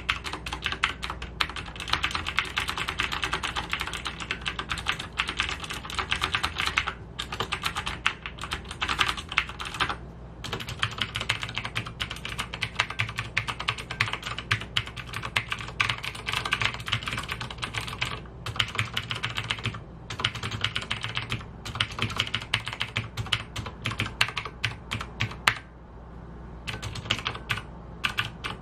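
Logitech G610 mechanical keyboard with Cherry MX Blue switches being typed on the arrow keys and number pad: a dense run of clicky keystrokes with a few brief pauses.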